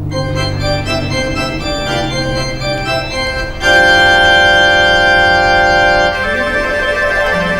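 Instrumental music led by an organ-like keyboard: a run of short notes, then a louder chord held for about two and a half seconds near the middle, then softer notes again.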